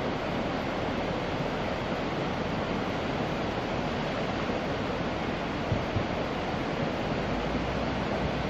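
Floodwater rushing past: a steady, even noise of fast-flowing water. Two brief knocks come about six seconds in, and a low rumble joins near the end.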